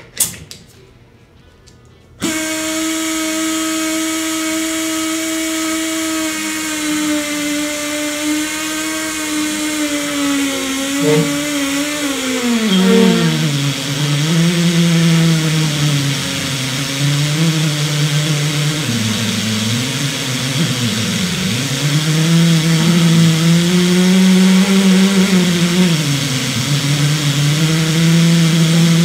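Air-powered Tri Tool 208B pipe beveling machine starting up after a sharp click and running with a steady pitched whine. About halfway through the first half its pitch drops and then keeps sagging and recovering as the tool bits cut into the stainless steel pipe.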